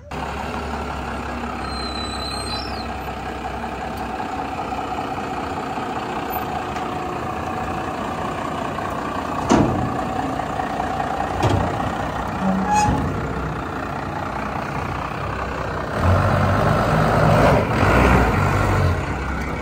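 Second-generation Dodge Ram's 12-valve Cummins diesel running as the pickup drives down off a trailer, with a few sharp clanks from the ramps about ten to thirteen seconds in. The engine gets louder near the end as it pulls onto the grass.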